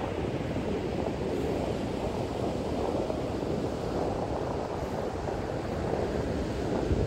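Steady rushing noise of surf and wind, with wind buffeting the microphone.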